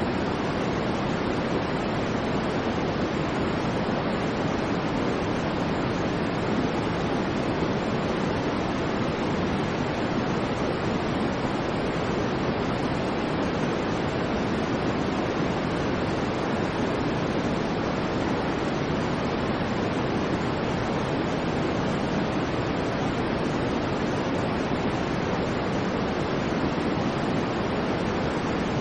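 Steady white noise: an even, unchanging rushing hiss, fuller in the low range than in the high.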